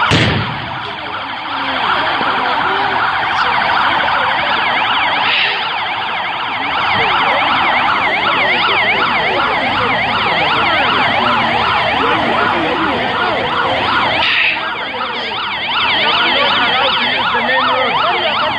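Several vehicle sirens sounding together, overlapping fast up-and-down yelping sweeps that run on steadily. A sharp knock comes right at the start.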